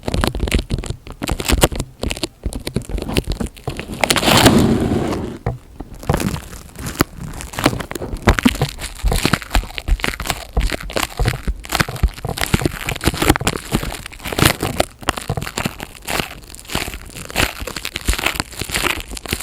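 Close-miked ASMR crinkling and crackling: crinkly material is handled and squeezed right at the microphone in quick, dense crackles, with a louder, fuller rustle about four seconds in.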